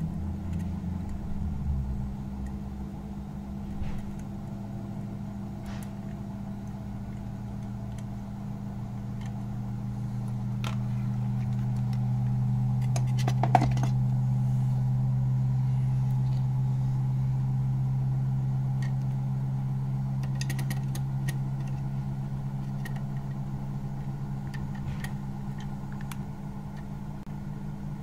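A steady low machine hum that grows louder through the middle and eases off again, with a few light clicks and one sharp click about halfway through.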